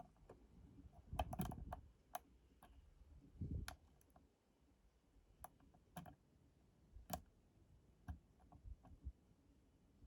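Irregular faint clicks and a few soft knocks of lock picking tools being worked into a 5-pin AZBE dimple lock.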